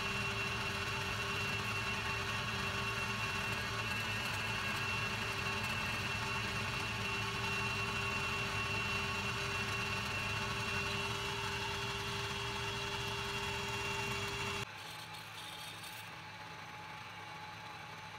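Metalworking lathe running steadily under a cut, with a steady whine, as the steel collet holder is machined. Near the end it cuts off abruptly to a quieter, lower-pitched lathe running as a drill bores into a bronze bush.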